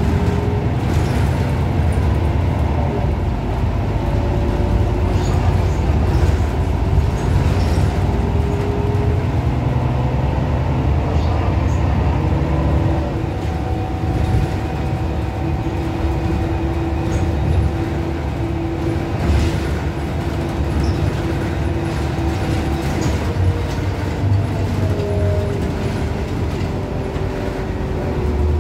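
Irisbus Crealis Neo 12 city bus under way, heard from inside the passenger cabin: a steady engine and road rumble with whining tones that slowly rise and fall with speed, and scattered clicks and rattles.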